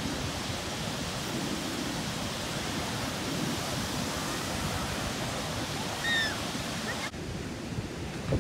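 Ocean surf breaking and washing up the beach, a steady rush of waves. About six seconds in there is a short high call, and near the end the surf sound cuts off abruptly, giving way to a quieter low rumble.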